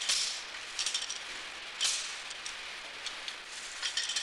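Screw clamps being handled and tightened by hand: a few short, irregular clinks and scrapes over a steady hiss.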